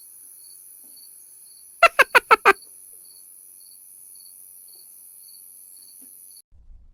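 Crickets chirping over a steady high hiss, like a night-time ambience track. About two seconds in, a rapid run of five loud, pitched animal calls cuts through.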